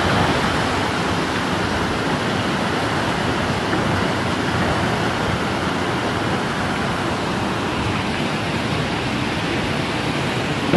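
Steady rush of seawater flooding across a paved street and pouring over low walls and curbs as the sea surges inland.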